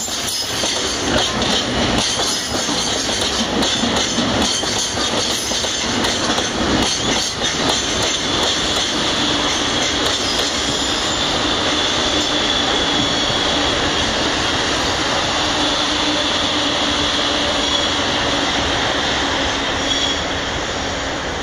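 Freight train wagons rolling past, the wheels clacking over rail joints for the first several seconds, then running more steadily with a faint, high wheel squeal.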